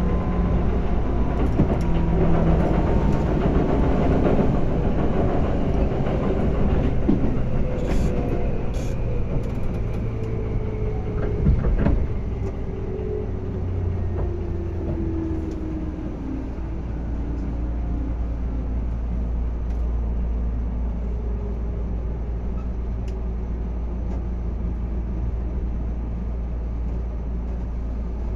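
Tobu 10030 series electric train slowing down: its traction motor and gear whine falls steadily in pitch, with a couple of sharp clicks along the way. About sixteen seconds in the whine dies away, leaving a steady low hum.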